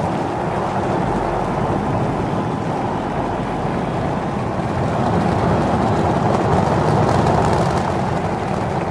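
Exhaust noise of the Super Heavy booster's 33 Raptor engines as Starship climbs off the pad just after liftoff: a loud, steady rumble that swells a little about six seconds in.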